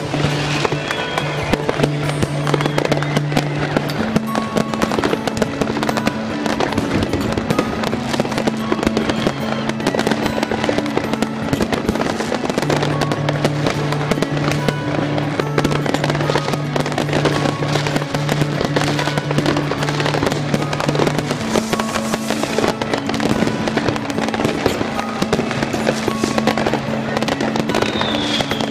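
Many fireworks and firecrackers going off at once in a dense, unbroken barrage of bangs and crackles, with music carrying long held low notes underneath.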